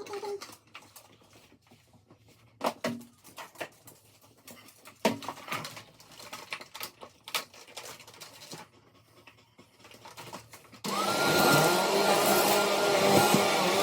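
Scattered knocks and clicks, then about 11 seconds in a vacuum cleaner switches on suddenly and runs steadily with a held whine.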